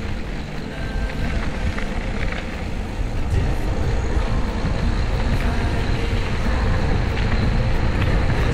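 Wind buffeting the microphone and mountain-bike tyres rolling over a dirt trail, with scattered small rattles and clicks, growing louder toward the end.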